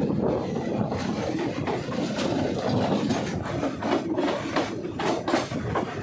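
A train running through the ghat heard from on board: a steady noise of wheels and coaches on the track, broken by many short, irregular knocks.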